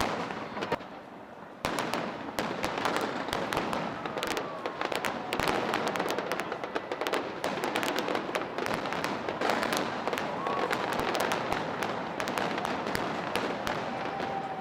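Fireworks going off in quick succession: a few sharp bangs, then from about a second and a half in a dense, near-continuous run of cracks and crackle.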